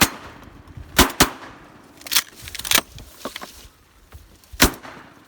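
A volley of shotgun blasts from several hunters firing at once at ducks, about six sharp shots spaced unevenly over the first five seconds.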